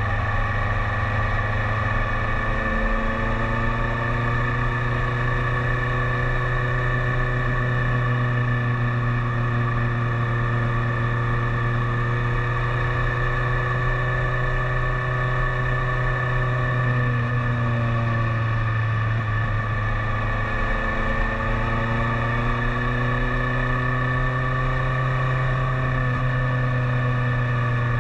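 BMW K1300S inline-four engine running steadily at cruising speed, heard from the rider's position. About two-thirds through its pitch drops as the throttle is rolled off, then climbs again as it picks up speed.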